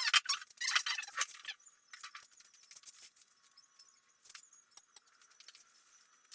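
A quick run of sharp clicks and scrapes, like steel pieces being handled and tapped, for about the first second and a half, then only a few faint scattered clicks.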